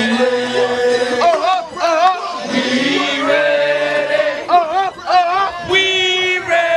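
Background music: a song with a singing voice holding long, wavering notes over steady sustained accompaniment.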